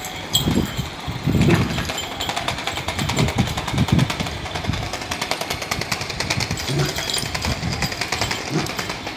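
Battery-powered light-up toy ball rattling with a fast, even clicking as it runs along the floor, with a few dull low thumps as a puppy noses at it.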